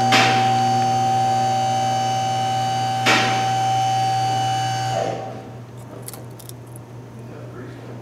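Steady electrical hum, one fixed buzzing tone with its overtones, that cuts off suddenly about five seconds in. Two short noises break in, one at the start and one about three seconds in.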